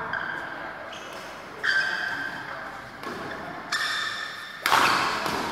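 Badminton rackets striking the shuttlecock in a rally: four sharp hits with a ringing ping, spaced one to two seconds apart, the last one the hardest. Each hit echoes in the large hall.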